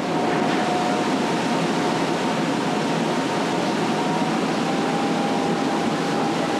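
Nemesis inverted roller coaster and its station machinery running: a steady mechanical noise with a faint high whine.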